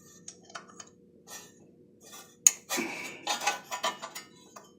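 Metal clinks and taps of a 1/2-inch open-end wrench on the starter mounting bolts of a Briggs and Stratton opposed-twin engine as a bolt is loosened. A few light ticks, then a sharp clink about halfway in, followed by a second and a half of clattering clinks.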